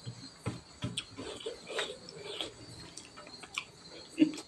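Close-up eating sounds: fingers scraping the last rice grains across a stainless steel plate, with chewing and mouth clicks in irregular short bursts.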